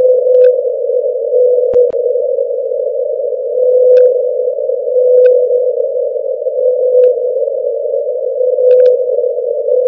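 Hydrophone recording of the '52-hertz whale', the so-called world's loneliest whale, calling: a continuous droning tone with a noisy edge, swelling into brighter notes about once a second, with a few faint clicks.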